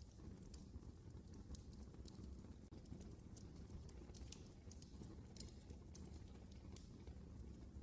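Wood fire burning in a fireplace: a low steady rumble of the flames with frequent small, irregular crackles and pops.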